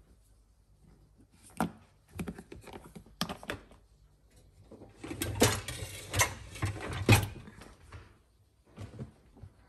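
Clatter and knocks of tidying up: things being handled, set down and put away. There are a few separate knocks and clicks at first, then about two seconds of dense rattling and clunking from about five seconds in, and a couple of knocks near the end.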